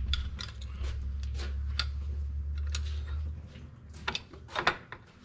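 Tofaş four-speed gearbox being shifted by hand on a workbench: repeated metallic clicks and knocks from the gear lever and selector mechanism, with two louder clunks near the end. A low steady hum runs underneath and stops about three seconds in.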